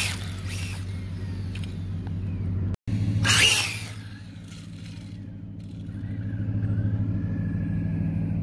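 Radio-controlled truck on an electric 4S drive running on asphalt: a loud burst of wheelspin and grit spray at the start, a loud rush as it passes close about three seconds in, then the motor's faint whine rising and falling as it drives off. The sound briefly drops out just before the pass.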